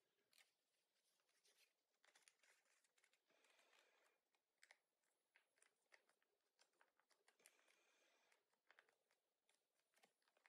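Faint rustling and crackling of origami paper being folded and creased by hand, with many small irregular crinkles.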